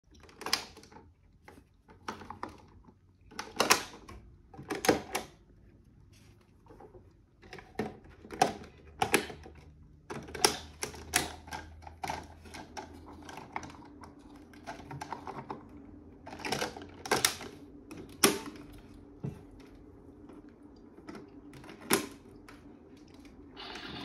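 Irregular sharp clicks and knocks of hard plastic as toy washing machines are handled: small round doors opened and shut, tops pressed, the toys set down on a wooden table.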